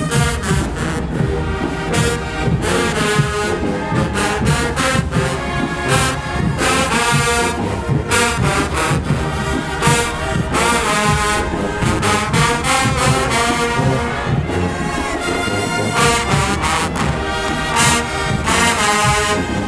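Show-style HBCU marching band playing loudly: a full brass section with trombones prominent, over a steady drum beat.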